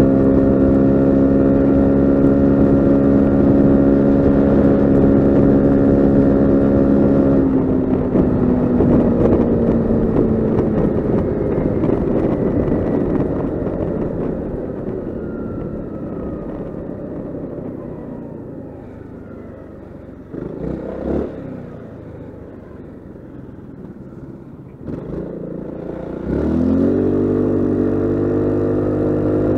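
Honda SH 350 scooter's single-cylinder engine heard from the saddle, holding a steady drone at cruising speed. About seven seconds in the throttle closes and the pitch falls away as the scooter coasts and slows, growing quieter, with a brief louder burst of noise around twenty seconds in. Near the end the engine picks up again, its pitch rising quickly and then holding steady as it accelerates.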